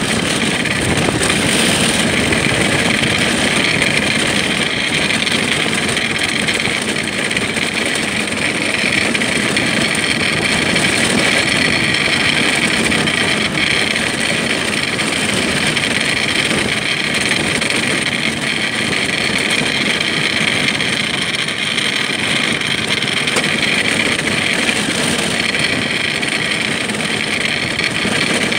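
Steady, loud rushing noise of an ice yacht's runners sliding over the ice at speed, mixed with wind on the microphone.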